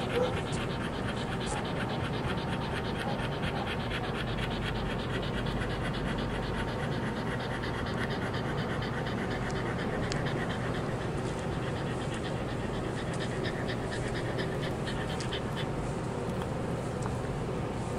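A dog panting quickly and steadily.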